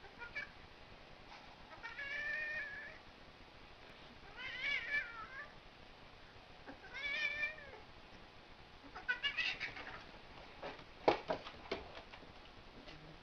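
Cat yowling three times, each a drawn-out, wavering cry of about a second, while wrestling with a bear cub. Then comes a run of sharp knocks and scuffles, the loudest near the end.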